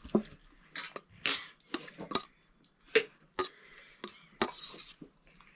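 Metal kitchen utensils and dishes clinking and scraping: about ten sharp, unevenly spaced knocks, a few with a short ring.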